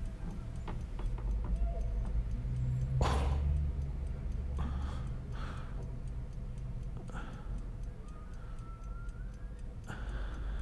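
Regular soft ticking over a low steady hum, with a person's breath about three seconds in and a few softer breaths later.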